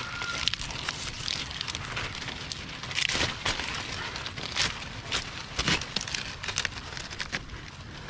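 Irregular crackling and rustling, with wind buffeting the microphone as a low rumble.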